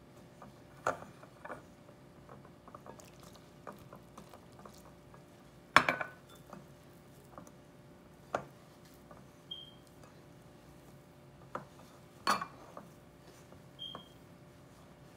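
Hands kneading and squeezing a crumbly wheat-flour dough in a glass mixing bowl: soft rubbing and squishing, broken by sharp knocks against the glass, the loudest about six seconds in and another about twelve seconds in.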